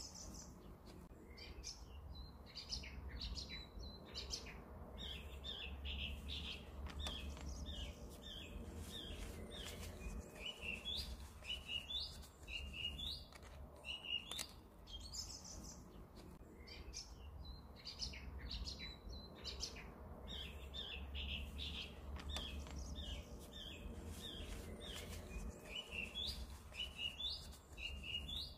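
Small songbirds chirping and singing, short repeated trilling phrases coming again and again, over a low steady rumble.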